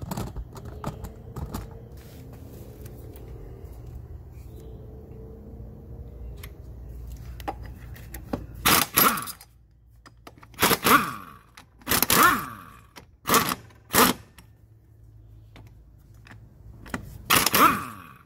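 Several short, loud bursts from a power impact wrench, each spinning up and winding down with a falling pitch, as the fasteners on a Cushman's rear wheel and brake are worked loose. Before them, quieter clinks and handling of tools.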